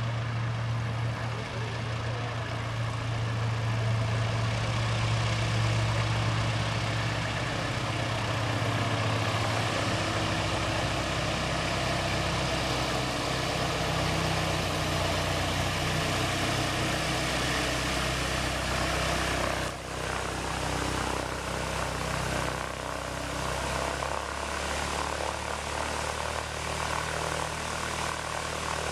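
Single-engine Piper light aircraft's piston engine and propeller running at low taxi power, a steady low drone as the plane rolls slowly toward the listener.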